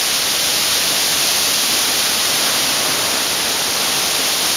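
Strong wind blowing through trees: a steady, loud rushing noise of stirred leaves and branches.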